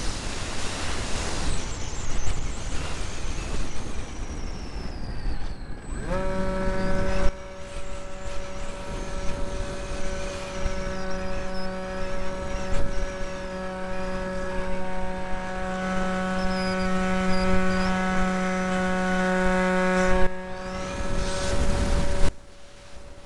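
Wind rushing over the RC mini Cessna's onboard camera. About six seconds in, the plane's electric motor and propeller spool up into a steady whine that holds until near the end.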